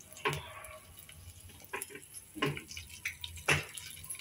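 Fresh chillies, bay leaves and cumin frying in hot mustard oil in a kadhai: a faint sizzle broken by a few sharp pops and crackles as the oil spits.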